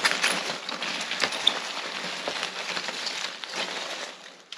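Paper packaging rustling and crinkling as items are handled and taken out of a subscription box, a steady run of small crackles that dies away near the end.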